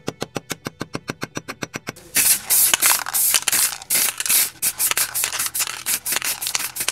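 Rapid hammer strikes on a small steel plate held on a vise, about seven ringing blows a second, for about the first two seconds. Then an aerosol spray-paint can sprays in a series of short, loud bursts of hiss.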